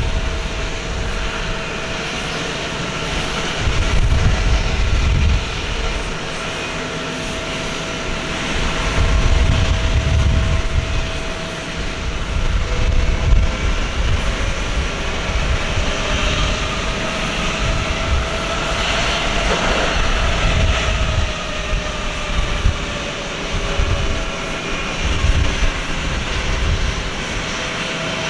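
Airbus A321's twin jet engines running at idle with a steady whine over an uneven low rumble, as the airliner starts to taxi. There is a brief swell in the engine noise about two-thirds of the way through.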